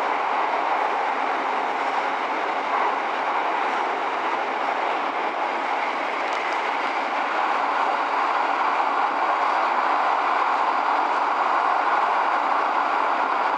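E231-series electric train running steadily at speed, heard from inside the front car: an even, continuous rumble of wheels and running gear on the rails.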